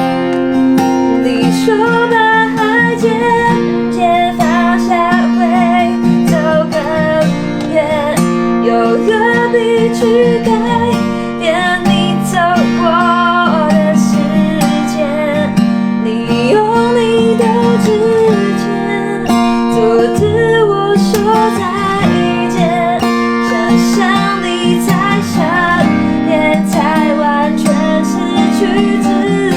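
Acoustic guitar strummed and picked as accompaniment while a voice sings a slow pop melody over it.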